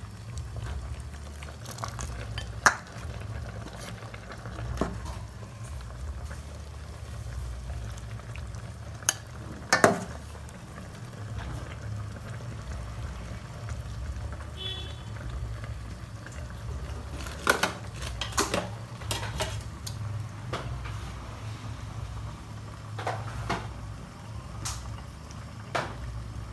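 Sweet pork cooking in a pot, boiling over a steady low rumble, with scattered clinks and knocks of a utensil against the pot as it is stirred.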